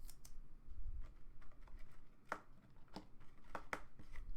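A few faint, light clicks and taps of trading cards being handled, over a low room hum.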